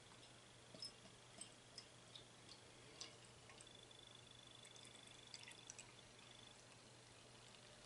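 Faint sound of ale being poured from a glass bottle down the side of a tilted glass, with a few small ticks and clinks along the way.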